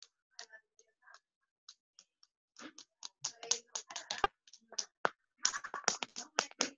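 Rapid, irregular clicking and tapping over a call's audio, sparse at first and then denser and louder from about three seconds in.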